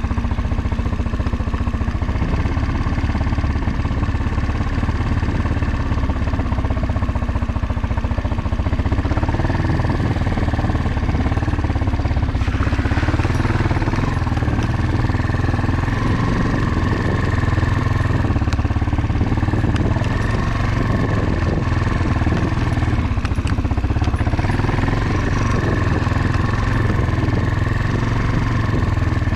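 Motorcycle engine running steadily while riding, with short changes in its note about twelve seconds in and again near twenty-four seconds.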